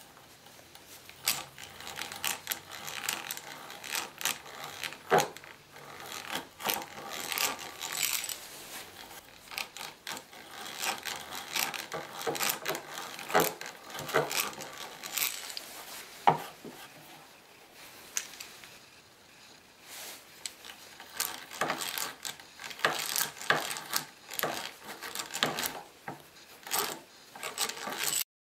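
Hand-cranked drill boring through a clamped stack of thin wooden plates: irregular scraping and crackling as the bit cuts the wood, with clicking from the drill's gears and sharp cracks about 5 and 16 seconds in. The cutting pauses for a couple of seconds past the middle, then resumes and stops abruptly near the end.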